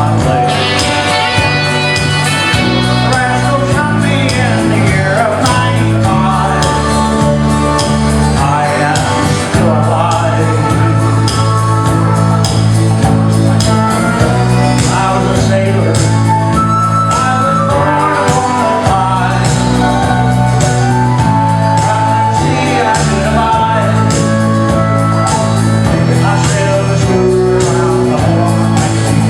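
Country music: a man singing over guitar and a steady bass line.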